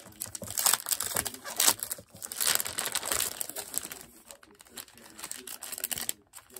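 Packaging crinkling and rustling as a pack of cardstock is handled and unwrapped, in irregular crackly bursts.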